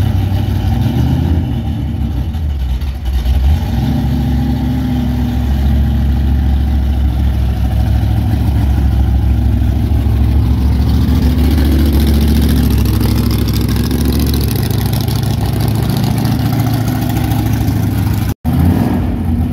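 Chevrolet Camaro's engine running as the car pulls into the garage, its pitch rising and falling with the throttle. The sound cuts out for an instant near the end.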